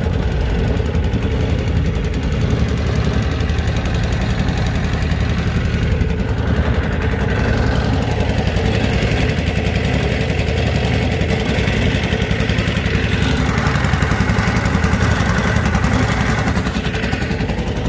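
Boat motor running steadily at speed.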